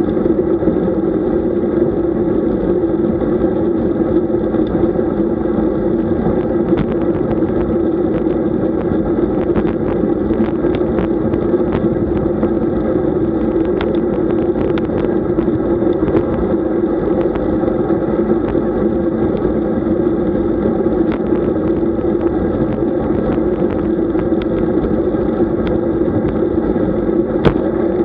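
Steady rushing wind and road noise on a camera riding along on a road bike, with a few short clicks and rattles scattered through it.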